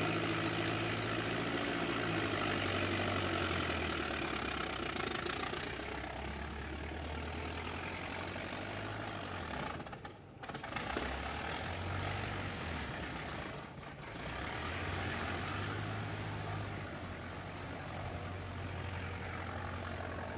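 Old car engine running, its low pitch shifting down and back up, with two brief dips in level about ten and fourteen seconds in.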